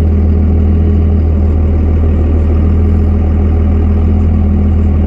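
Engine of a farm machine running steadily under load, a loud, even low hum with a steady drone above it.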